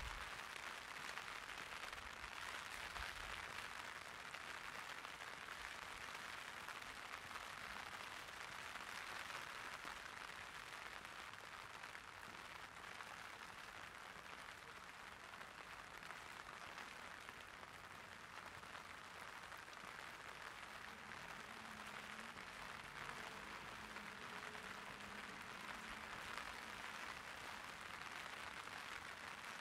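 Light rain pattering on an umbrella, a steady fine hiss of drops.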